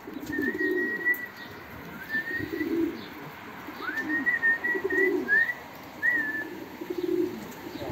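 Racing pigeons cooing repeatedly, a low warbling coo about every second, with short high whistled notes over them.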